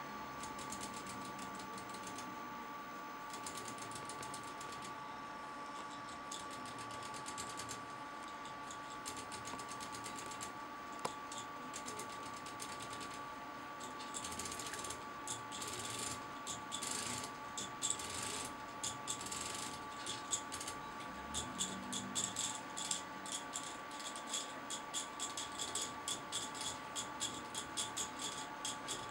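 Lego Technic pendulum clock with a pin-wheel escapement: small plastic parts clicking, in loose clusters at first while the mainspring is wound, then a quicker, more regular ticking from about halfway as the escape wheel runs against the pendulum's pins. A faint steady whine sits underneath.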